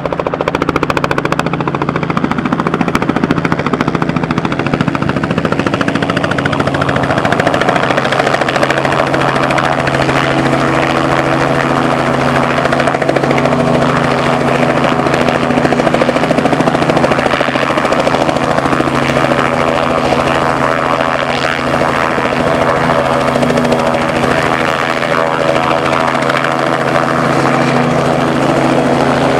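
Robinson R44 helicopter's six-cylinder piston engine and rotors running, a loud, steady drone at a constant pitch.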